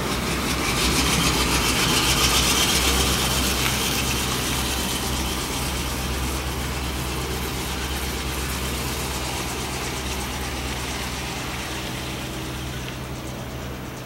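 A steady low machine hum, like an idling engine, with a hiss over it that is strongest a few seconds in and eases off slightly toward the end.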